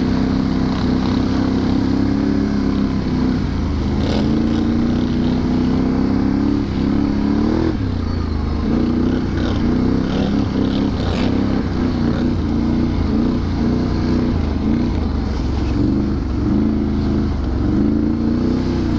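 Can-Am Renegade 1000 XXC ATV's V-twin engine running while riding a trail, its pitch rising and falling with the throttle, with a sharp rise about eight seconds in.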